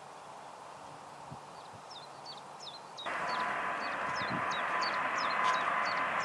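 A small bird chirping over and over in short, quick calls. About halfway in, the steady noise of a jet airliner's engines comes in suddenly and runs on, louder than the birdsong and with a steady whine in it.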